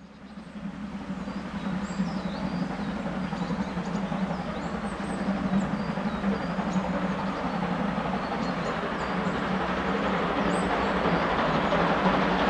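Steam train approaching from inside a tunnel: a steady, muffled noise of exhaust and running gear that fades in and grows gradually louder as it nears the portal. Small birds chirp faintly above it.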